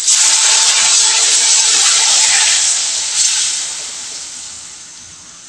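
Sprite poured into a hot wok of frying butter, garlic, shallots and chili, setting off a loud hiss of sizzling and steam. It starts suddenly, holds for about three seconds, then dies down as the liquid settles into a bubbling simmer.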